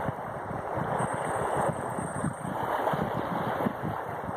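Steady wind buffeting the microphone, with small lake waves washing onto the sandy shore.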